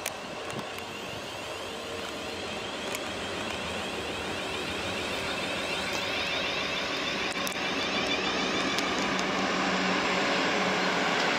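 South Western Railway Class 444 Desiro electric multiple unit running into the platform, its traction motors whining over the rumble of the wheels on the rails, growing steadily louder as it draws near.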